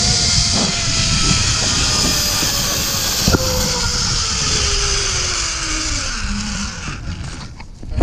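Zip line trolley running along the steel cable: a whine that falls steadily in pitch as the rider slows toward the landing platform, over wind rushing past the microphone. A click about three seconds in and a sharp knock at the very end.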